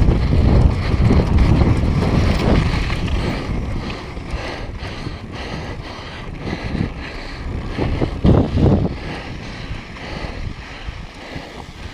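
Wind buffeting a GoPro's microphone as a downhill mountain bike rolls fast over a loose, dusty gravel trail, a continuous rumble with the tyres running over the dirt underneath. The rumble is heaviest for the first few seconds, eases after about four seconds, and surges briefly a little past eight seconds.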